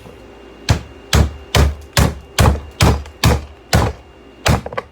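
Heavy blows struck in a quick, even run, about two a second, around nine in all, each a hard thud with a sharp crack, as from hammering on an object. There is a short pause a little after the middle before the strikes resume.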